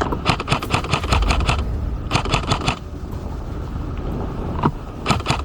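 Airsoft electric rifles firing rapid full-auto bursts: a long burst, a shorter one, then a single shot near the end, over a low rumble.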